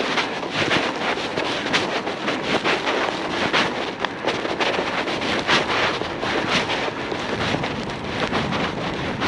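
Bicycle riding through fresh snow, heard on an action camera's microphone: a steady wind rush with many short, irregular crackles from the tyres and bike.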